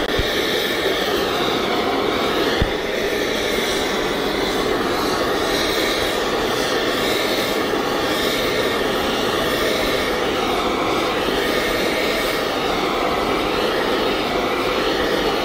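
Electric arc welding on the steel crankcase of an EMD diesel locomotive engine during a crankcase repair: a steady hissing noise that runs on without a break, with one small click a little over two seconds in.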